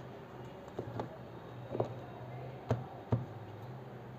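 Tarot cards handled in the hands, giving a few soft clicks and taps as cards are flicked and slid off the deck, over a low steady hum.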